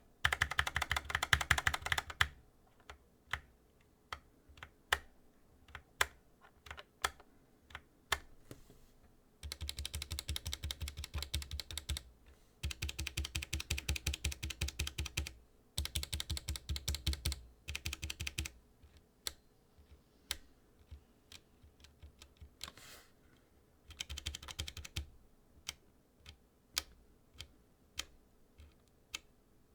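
Typing on a Skylong GK96 mechanical keyboard with PBT keycaps and stock, unlubed switches. Several runs of fast continuous typing lasting a few seconds each alternate with slower, separate single key presses.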